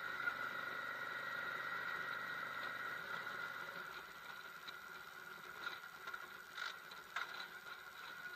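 Yamaha V Star 650's air-cooled V-twin running while the motorcycle rides along, heard faintly with road noise, its engine note fading after about three seconds. A steady high whine sits over it, and a few short knocks come near the end.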